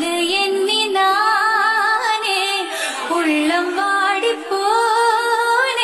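A woman singing a Tamil song, drawing out long held notes with a wavering vibrato, with little accompaniment heard.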